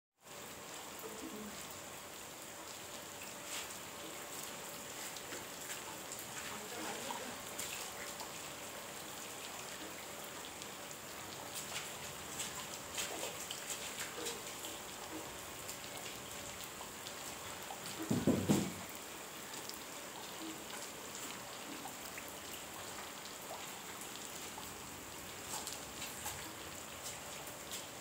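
Steady rain falling on garden plants and paving, with scattered drops ticking. About two-thirds of the way through, a brief louder low sound rises over it.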